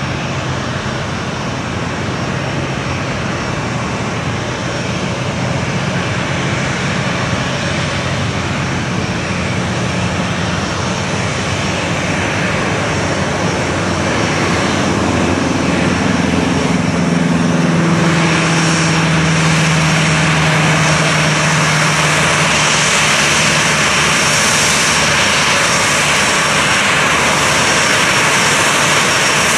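Boeing 737-800's CFM56-7B turbofan engines at taxi power as the airliner taxis by: a steady jet whine and rush that grows gradually louder, turning brighter and harsher about two-thirds of the way in as the engines swing toward the listener.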